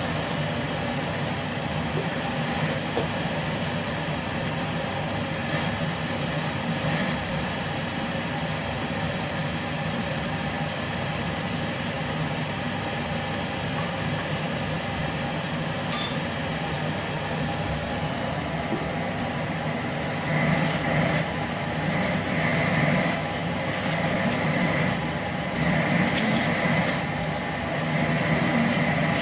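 Vacuum cleaner motor running with strong suction: a steady rushing hum with a thin high whine over it. In the last third the sound swells and eases every second or two.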